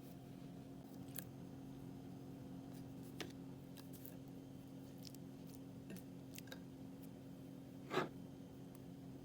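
Crunchy slime being handled, giving scattered faint clicks and crackles, with one louder crunch about eight seconds in, over a steady low hum.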